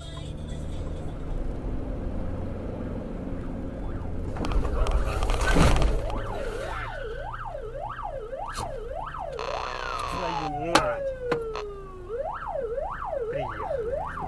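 Police van's electronic siren yelping, sweeping quickly up and down about twice a second; near the middle it switches briefly to a buzzy horn tone and a falling wail, then the yelp resumes. Before the siren starts there is road noise and a loud noise burst lasting about a second and a half.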